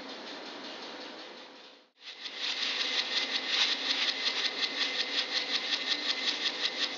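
A steady mechanical hum fades out about two seconds in. Then a louder, rapid, even mechanical clatter starts, about five beats a second.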